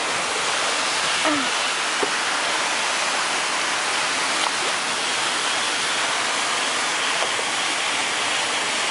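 Steady rushing of falling water from a fountain on a canal.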